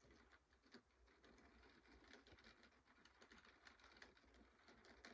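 Faint clicking and rattling from a Graham Farish N gauge Merchant Navy steam locomotive's three-pole motor and wheels as it gets a six-coach train moving. The clicks come quick and irregular, growing busier after a second or two, over a low steady hum.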